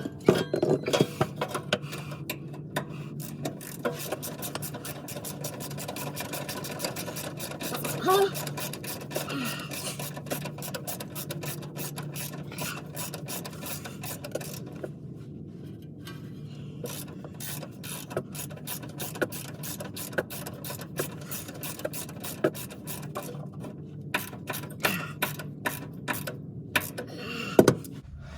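A ratchet wrench clicking in fast runs, with short pauses between them, as the shield's bolts are run in and snugged down. A steady low hum runs underneath.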